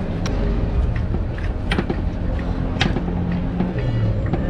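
Busy street ambience: a steady low rumble with a few sharp clicks.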